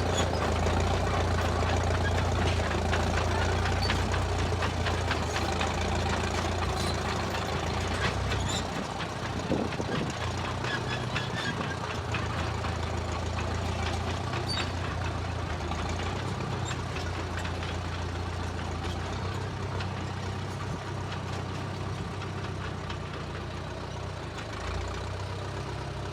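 A 1934 Caterpillar crawler bulldozer's engine running under load, a steady low hum with rattling and clanking over it. The low engine note eases off about a third of the way through.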